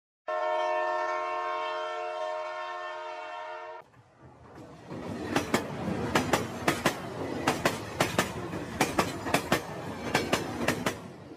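Train horn sounding one long steady blast of several notes at once for about three and a half seconds, then cutting off. Then a train running over the rails, its wheels clicking sharply and irregularly over the rail joints in a rapid clickety-clack.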